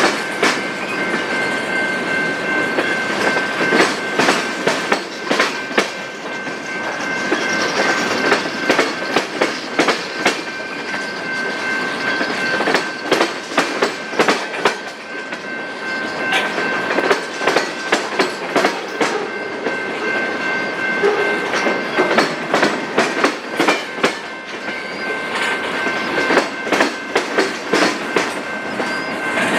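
Freight train cars rolling past, wheels clicking and clattering over the rail joints in a dense, irregular stream, with a steady high-pitched ring held underneath.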